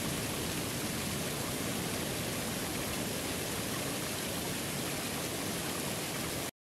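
Small waterfall splashing onto rocks, with water running over the stones below: a steady rush of water that cuts off suddenly near the end.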